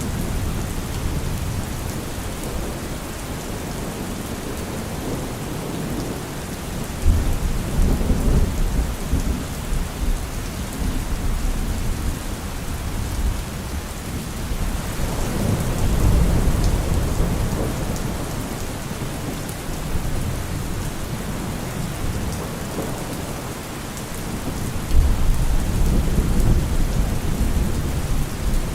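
Steady rain with low rolling thunder that swells up three times, about a quarter, half and most of the way through.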